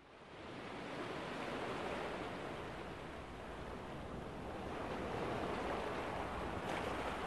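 Sea surf washing and breaking: a steady rushing of water that fades in from silence at the start.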